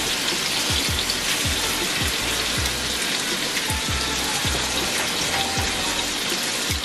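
Chicken back pieces sizzling loudly as they fry in oil in a stainless steel skillet, turned now and then with tongs. A background music beat thumps about twice a second underneath.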